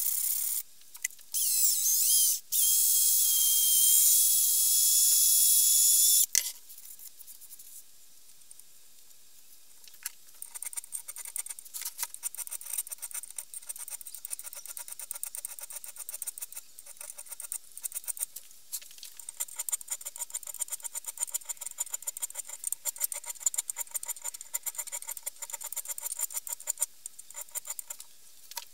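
Sanding block rubbed back and forth over the steel head of an old fireman's axe, a loud steady hiss that stops about six seconds in. After a short lull, a flat hand file rasps along the blade in many quick strokes.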